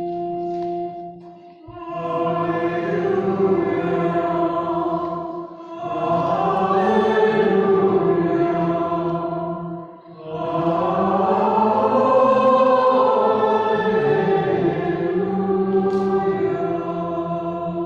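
Church music: a held instrumental chord, then voices sing three long phrases over sustained accompaniment. The phrases break briefly about five and about ten seconds in.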